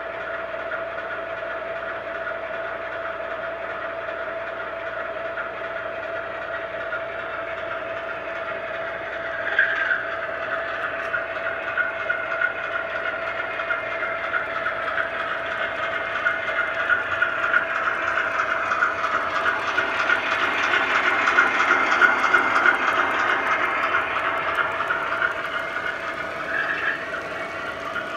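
O-gauge MTH Premier diesel passenger train with Erie cars running past on three-rail track: a steady electronic diesel engine sound with motor and wheel noise, growing louder as the train comes close, loudest a little past twenty seconds. A short horn toot about ten seconds in and another near the end.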